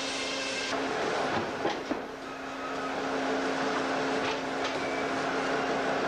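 Portable sawmill running: a steady engine hum under saw noise. A high whine cuts out about a second in, followed by a few sharp knocks.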